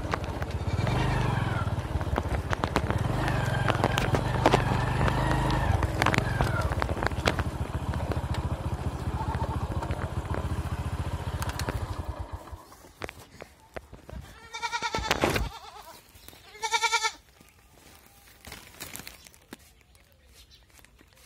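A motorcycle engine runs steadily and stops a little past halfway. Then a goat bleats twice in wavering calls, the second one louder.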